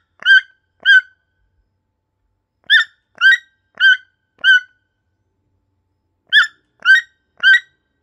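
Toucan calling: short, loud notes about two a second, given in a run of two, then four, then three, with pauses of about a second and a half between the runs.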